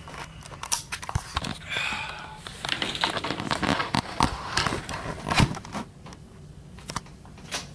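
Handling noise on a camera microphone: irregular clicks, knocks and crinkling rubs as the camera is touched and moved.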